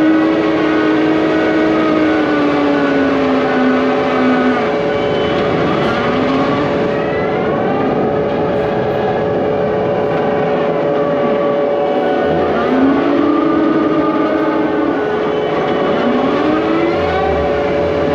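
Excavator working: a steady engine drone, with a hydraulic whine that rises and falls in pitch every few seconds as the machine moves.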